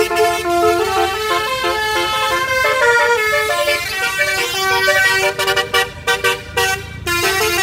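Tour bus's multi-tone musical "telolet" horn playing a tune of held notes that step from pitch to pitch, breaking into shorter choppy blasts about five seconds in.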